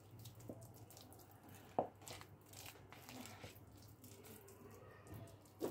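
Faint squishing and crackle of hands kneading and squeezing a mashed potato and chicken cutlet mixture in a bowl, with a few light taps, the sharpest just under two seconds in and another near the end.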